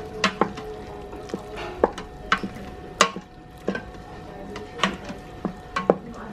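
Wooden spoon stirring thick cooked mung beans in the stainless steel inner pot of a Russell Taylors electric pressure cooker, knocking and scraping against the pot wall at irregular moments.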